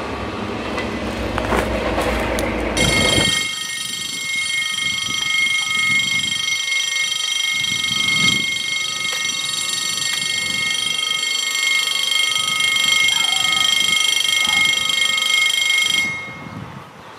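A train rumbling past for about the first three seconds. Then a steady, high-pitched ringing warning alarm sounds and cuts off suddenly near the end.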